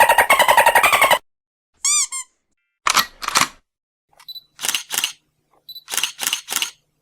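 A run of separate short motion-graphics sound effects. The first is a fast rattling sweep that falls in pitch and lasts about a second. A brief wobbling blip follows, then several pairs of short sharp clicks, like shutter clicks.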